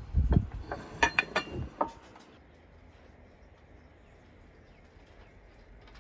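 Tableware on a wooden table: a dull knock, then a quick run of four or five sharp clinks of plates or cutlery in the first two seconds. After that only a faint outdoor background remains.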